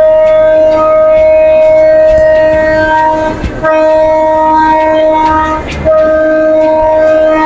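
Train locomotive's horn blowing loud at a steady pitch, in three long blasts with two short breaks, about three and a half and five and a half seconds in: the warning the train sounds as it nears a road crossing.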